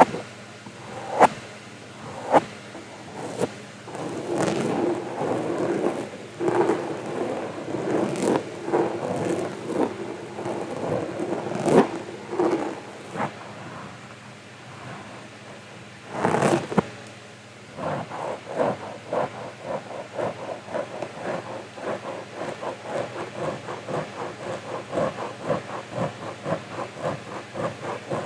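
Close-miked ASMR trigger sounds: a few sharp clicks, then dense rustling and scratching against the microphone, turning in the second half into a steady run of short brushing or scratching strokes, about three a second.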